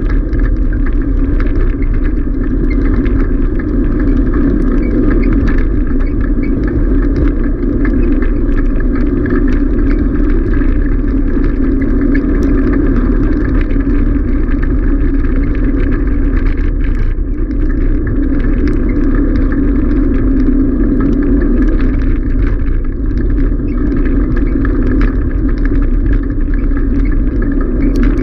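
Bicycle tyres rolling fast over a gravel road, a steady unbroken rumble, with wind noise on the microphone.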